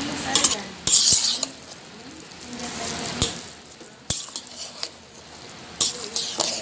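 A utensil stirring and scraping glutinous rice with chicken in a hot pan, sizzling, with a few sharp knocks of the utensil against the pan.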